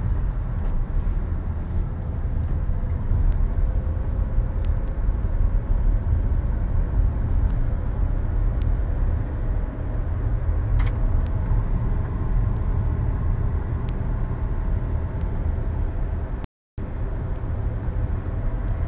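Steady low road and engine rumble inside a moving car's cabin, with a faint hum over it. The sound cuts out completely for a split second near the end.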